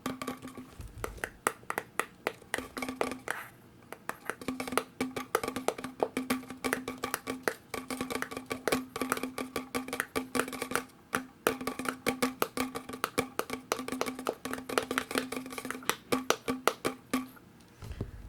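Fast tapping on plastic bottles and bottle caps, many taps a second, with a ringing tone from the tapped bottle under the clicks. The tapping pauses briefly twice and stops near the end.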